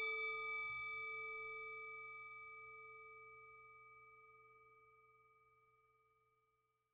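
A single bell-like chime rings out and fades slowly over about five seconds, a clear low tone with several higher tones above it. It is the opening sting of an animated logo intro.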